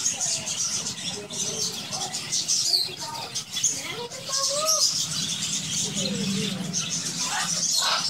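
A flock of budgerigars chattering and chirping, a dense high twittering throughout, with scattered lower calls mixed in.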